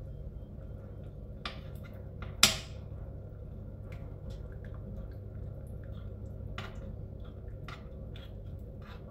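A utensil taps and scrapes against a nonstick frying pan while moving chicken, potatoes and carrots in simmering broth, with a few sharp clicks. The loudest click comes about two and a half seconds in, over a steady low hum.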